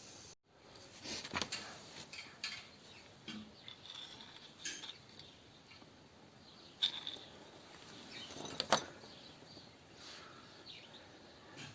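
Scattered faint clicks and light taps of small hard parts being handled, the sharpest about seven seconds in and again near nine seconds.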